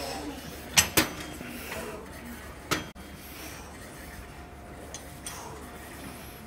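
Metal weight plates clinking on a plate-loaded seated leg press as the loaded carriage moves: two sharp clinks close together about a second in, and another near the three-second mark.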